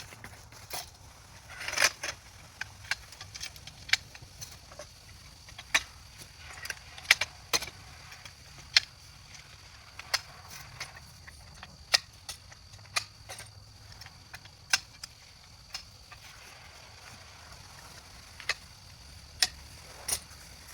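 Shock-corded hunting-blind frame poles being fitted and snapped together by hand: a series of sharp, irregular clicks and clacks, roughly one a second, with faint handling rustle between them.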